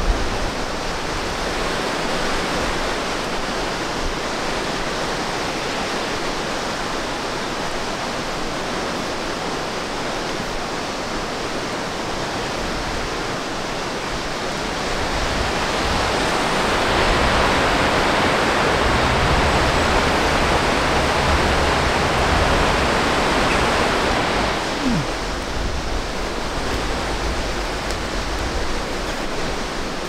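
Steady outdoor rushing noise, swelling louder past the middle with a low rumble for several seconds, then easing back.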